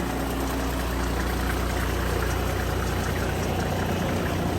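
A vehicle engine idling with a steady, low, even hum.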